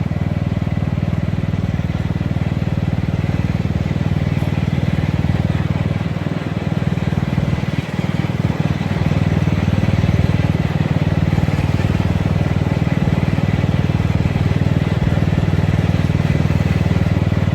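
Riding lawn mower engine running steadily under the rider as it drives along; the engine note dips briefly about halfway through, then runs on slightly louder.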